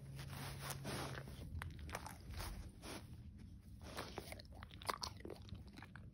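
A dog chewing with irregular crunching bites, the loudest about five seconds in.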